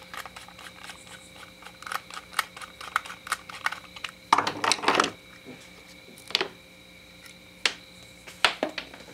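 Screwdriver working the brass main jet out of a Briggs & Stratton carburetor body: scattered small metal clicks and scrapes, a longer rattling scrape about four and a half seconds in, and a few single clicks near the end.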